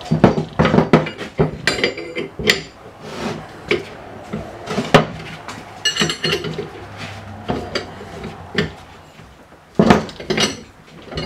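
Irregular metallic clanks and clicks from a ratchet wrench and steel bar working the screw of a C-frame bushing press, forcing a bushing into a steel lower control arm as the press tightens. About six seconds in comes a quick run of ringing metal ticks.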